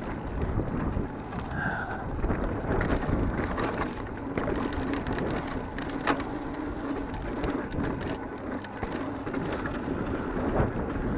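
Mountain bike rolling fast down a dry dirt trail: tyres crunching over dirt and loose stones, the bike rattling over bumps with a steady run of small clicks and knocks, and wind rushing on the microphone.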